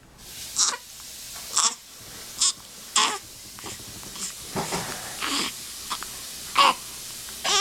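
Baby hiccuping: short, sharp hics about once a second, around seven in all, over a steady background hiss.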